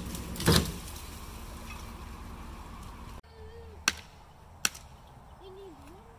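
Low engine rumble from a pickup truck pulling on a ratchet strap wrapped around a grapevine, with one brief, loud crackle about half a second in, likely from the straining vine. After a cut, two sharp knocks from work on an old wooden fence post, less than a second apart.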